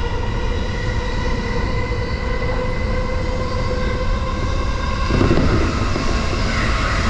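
JR Yokohama Line E233-6000 series electric commuter train running at speed, heard from on board: a steady rumble under a whine of several even, steady tones. About five seconds in the whine fades and the running noise turns rougher.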